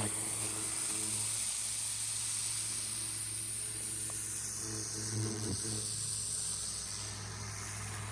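Pressure washer running: a steady hiss of spray over a low hum. It cuts off suddenly near the end.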